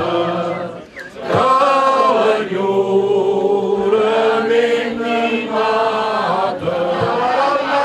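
A group of men and women singing together in chorus, unaccompanied, with a short break for breath about a second in.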